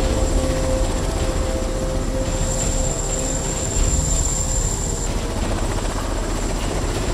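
Helicopter in flight: a steady rotor rumble with a fast, even pulse, and a thin high whine that grows stronger for a couple of seconds in the middle.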